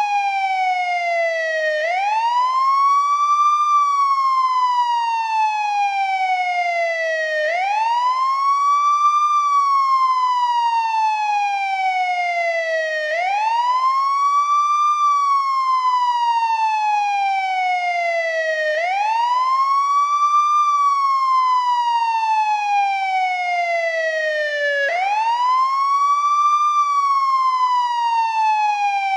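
Older-style American ambulance wail siren cycling steadily: each cycle is a quick rise in pitch followed by a long slow fall, about every six seconds.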